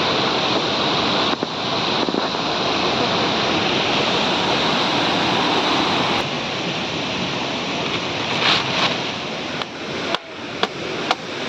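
Steady rush of a waterfall's falling water, with a few sharp clicks near the end.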